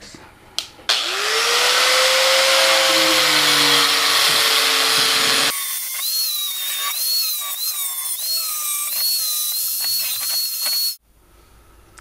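Angle grinder with a thin steel cutting disc spinning up about a second in and running at speed. It then cuts through 1/8-inch steel hardware cloth, its high whine dipping and recovering again and again as the disc bites the wire, and cuts off abruptly near the end.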